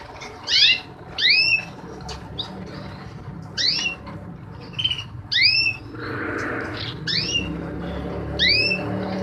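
Caged finches (canaries and goldfinch–canary hybrids) giving loud, sharply rising calls repeated every second or two, with softer chirps between them. A low steady hum joins about six seconds in.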